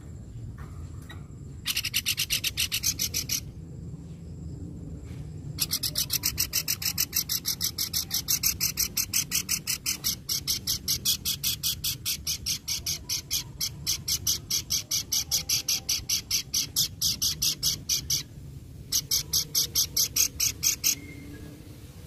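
Caged pelanduk (babbler) giving a harsh, rasping chatter of rapidly repeated notes, in three bouts: a short one about two seconds in, a long run from about six seconds, and a shorter one near the end.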